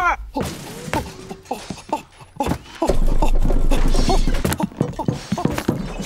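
Cartoon sound effects: a run of thuds and knocks, with a low rumble from about halfway through.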